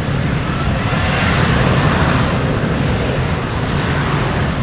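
Boeing 737-700 airliner's twin CFM56-7B turbofan engines at high thrust as the jet rolls past on its takeoff run. A loud, steady jet roar over a low rumble, swelling a second or two in.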